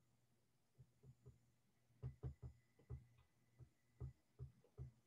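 Near silence with faint soft taps of a stylus on a drawing tablet during handwriting. The taps come irregularly, about three a second, from about two seconds in.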